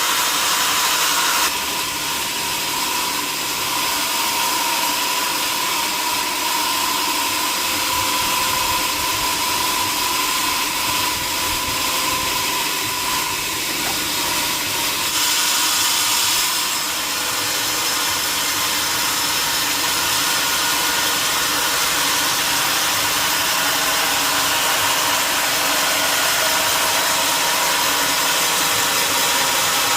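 Sawmill saw running, a steady dense hiss with a held whine through the first half that stops about halfway through.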